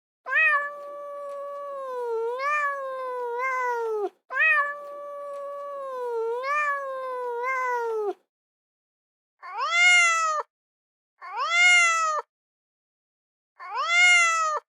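Cat meowing: two long, drawn-out meows of about four seconds each that waver in pitch, then three short meows a couple of seconds apart.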